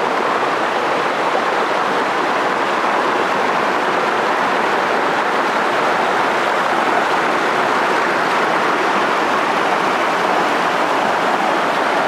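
Whitewater of a mountain stream cascading over boulders: a steady, even rush of water.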